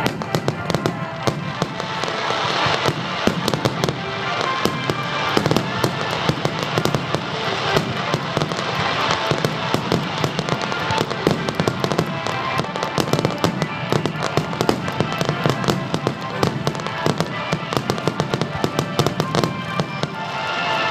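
Fireworks display: a dense, continuous barrage of sharp crackling and popping reports from many shells, over music playing.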